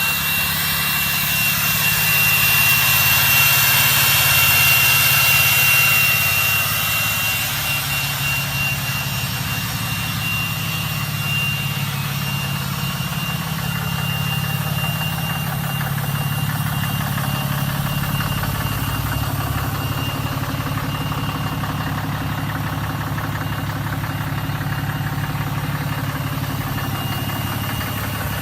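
A straight-piped 6.7 Cummins inline-six turbodiesel with a 5-inch exhaust running, with a steady high turbo whistle over the diesel rumble. It swells for a few seconds near the start, then settles to a steady idle.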